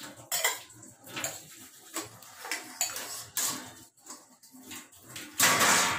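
Steel dishes and a pot clinking and knocking against each other and the steel sink as they are handled, with a short, louder rush of noise near the end.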